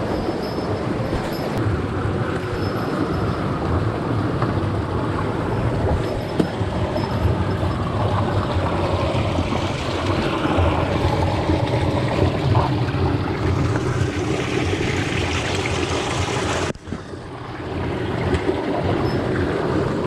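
Mountain stream water rushing over and between boulders: a loud, steady rush close to the microphone. About three-quarters of the way through it drops off suddenly and swells back over a second or two.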